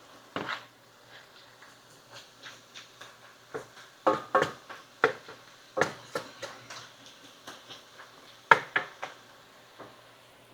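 Irregular clicks, taps and knocks of kitchen utensils and cookware being handled, with a cluster of louder knocks around the middle and one sharp knock later, over a faint low hum.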